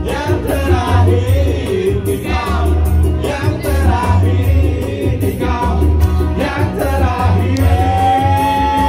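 Live band music at a party: an electronic keyboard over a heavy bass beat, with a voice singing over it. Near the end one long note is held.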